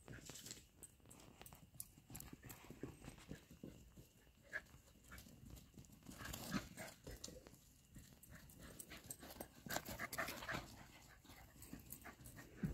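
Shetland sheepdogs running and chasing on grass: faint, quick, irregular paw thumps with some panting, busiest about six seconds in and again around ten seconds.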